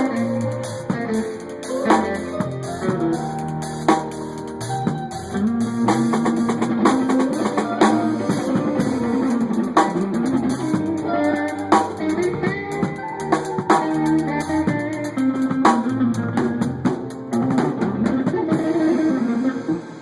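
A band playing at a sound check: guitar lines over a drum kit with steady drum strikes.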